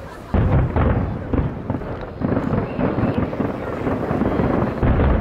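Aerial fireworks display: a dense barrage of shell bursts booming in quick succession, starting abruptly about a third of a second in and going on without a break.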